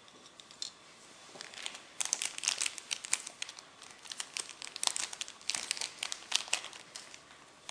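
Plastic packaging crinkling as it is handled: an irregular run of crackles that starts about two seconds in.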